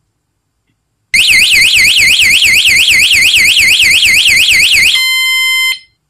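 Cicada A6 bicycle anti-theft alarm sounding: a loud, fast warbling siren, about four sweeps a second, starting about a second in. Near the end it switches to a steady tone for under a second and then cuts off.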